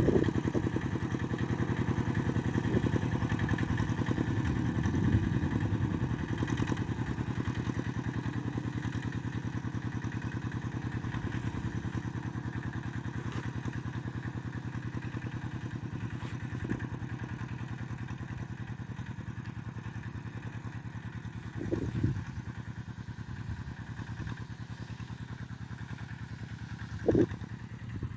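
Small engine of a motorised plough running steadily, slowly getting quieter, with two short knocks near the end.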